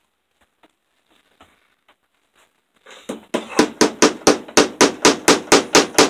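Hammer tapping a cable staple over electrical wire into the wall, a quick even run of sharp strikes about five a second that starts about three seconds in, after a few faint clicks.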